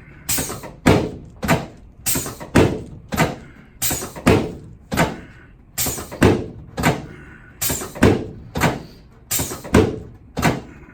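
Chiropractic drop table's drop section clunking down again and again as the adjustment is given, a sharp knock about every half second.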